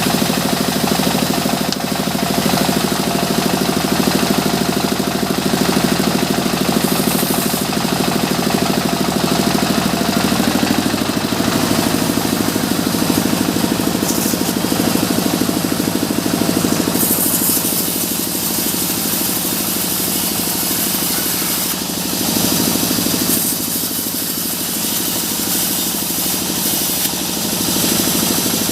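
A sawmill's engine running steadily with a fast, even throb, its pitch and level shifting a few times.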